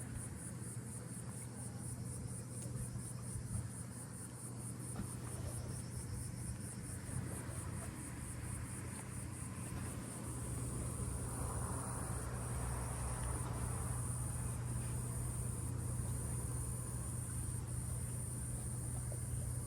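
Insects chirring in a steady, high-pitched, fast-pulsing drone over a steady low hum.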